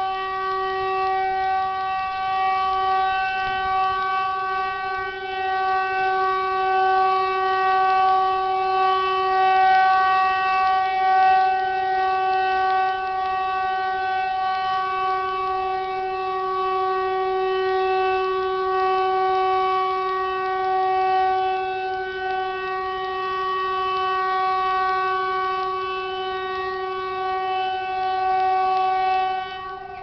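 Loud, steady, trumpet-like tone with a rich stack of overtones, held unbroken with only slight wavers in pitch and loudness, dropping in level just before the end.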